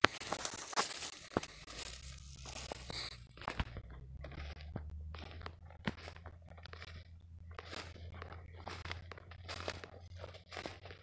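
Footsteps crunching through dry leaf litter at a steady walking pace, with a low steady hum underneath.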